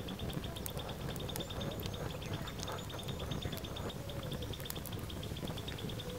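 Wood fire crackling under a frying pan, with a few sharp pops over a low rumble of flame. A steady high chirping pulses about eight times a second alongside it.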